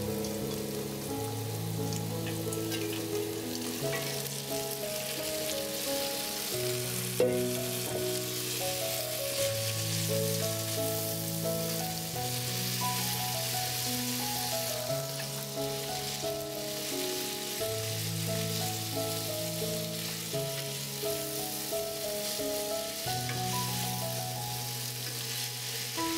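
Diced potatoes and onion frying in oil in a pan, a steady sizzle, with stirring by a wooden spatula and frozen okra added partway; one sharp click about seven seconds in. Calm background music with slow-changing bass notes plays over it.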